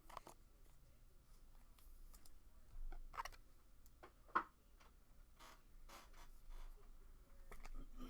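Faint, scattered clicks and light rustling of trading cards being handled and flipped through, with one sharper click about four and a half seconds in.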